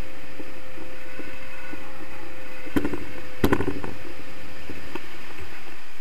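Wind rushing over the action camera's microphone in flight under a tandem paraglider, a steady low buffeting. A few sharp knocks come near the middle, and a faint steady tone fades out about five seconds in.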